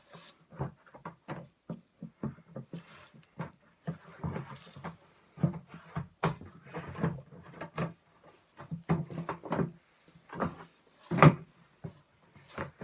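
Handling noise from assembling a life-size skeleton pirate prop: irregular knocks and clicks as a hard-to-fit part is worked onto it, with one louder knock about eleven seconds in.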